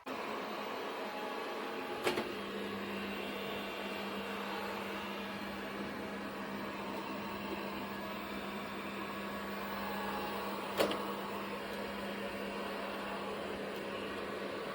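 Airzeen R7 robot vacuum running, a steady motor and suction whir with a low hum that sets in about two seconds in. A sharp knock about two seconds in and another about eleven seconds in.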